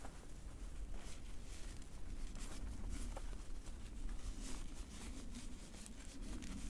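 Rustling of tarp fabric, handled at its edge, with scattered small crackles and clicks from dry leaf litter.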